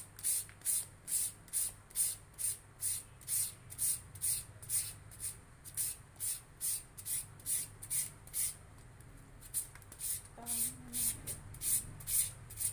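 Green papaya being shredded with a handheld serrated papaya shredder: rhythmic rasping scrapes, about two and a half strokes a second, with a brief pause about nine seconds in.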